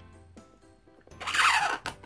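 One scraping stroke of a utility knife scoring an acrylic sheet, about a second in and lasting under a second, over background music.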